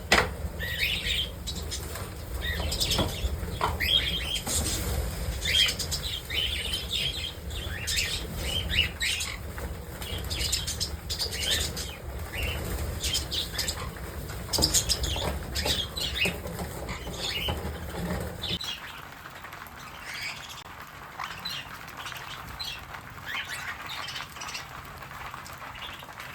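Small pet parrots chirping and calling over and over, with wing flapping. A low background rumble cuts off about two-thirds of the way through.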